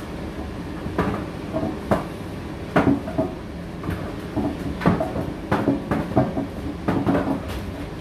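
Indesit IDC8T3 condenser tumble dryer running: a steady hum from the motor and fan, with irregular knocks and clunks as the load tumbles in the drum.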